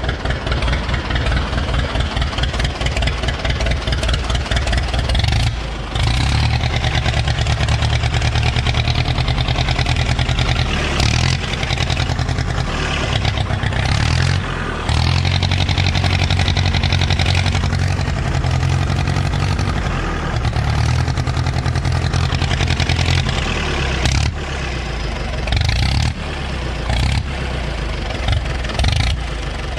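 Ostrówek K-162 backhoe loader's diesel engine running, its speed rising and falling several times, on the machine's first run after a full rebuild.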